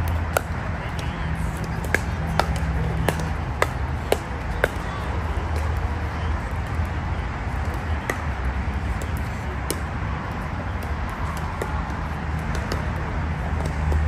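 Pickleball paddles hitting a plastic ball: a quick run of sharp pops through the first five seconds, then a few scattered pops, over a steady low rumble.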